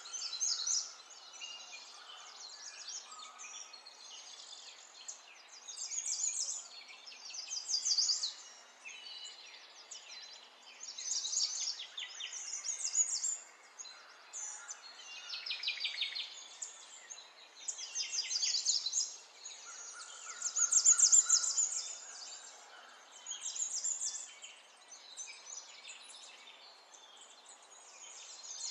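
Small birds singing: rapid high trills and chirps that come in bursts every couple of seconds, loudest about two-thirds of the way through.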